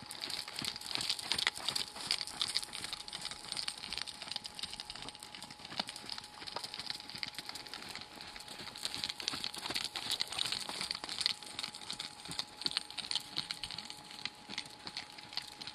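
A horse's hoofbeats on arena sand as it canters on the lunge line, under a steady dense crackle.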